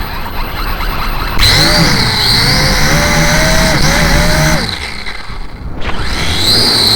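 Small quadcopter's electric motors and propellers whining at close range over wind rush. The pitch wavers up and down as the throttle changes, jumps louder about a second and a half in, dips around five seconds in, and climbs again near the end.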